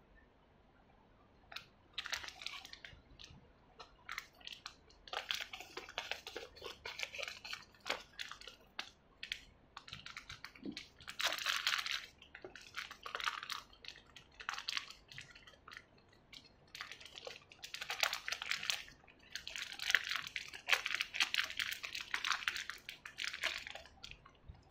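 Clear plastic bags crinkling in irregular bursts as small figure pieces are handled and unwrapped by hand, with short lulls between bouts.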